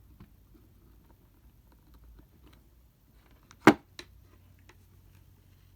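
Faint handling of a handheld multimeter, then one sharp knock a little past halfway, with a lighter tick just after it.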